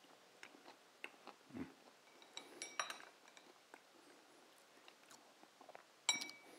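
Fork and knife clinking and scraping against a ceramic bowl while cutting through the salad. There are faint light clicks throughout, and a couple of sharper clinks ring briefly, about two and a half seconds in and again near the end.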